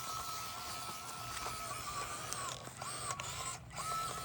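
Small brushed electric motor of an Axial SCX24 Deadbolt crawler (Injora 050 66T) whining in high gear. It holds a steady high whine for the first couple of seconds, then gives several short bursts of whine that rise and fall as the throttle comes on and off.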